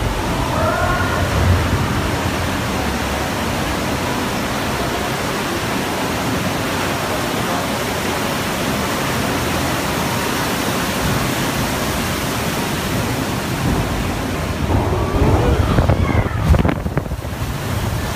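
Steady rushing of water on an amusement-park water ride in a dark tunnel, with a louder low rumble and faint snatches of music near the end.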